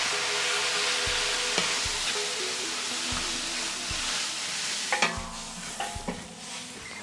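Curry paste frying in hot oil in a large wok, with a steady sizzle that thins out after about five seconds. A few sharp knocks against the pan come near the end.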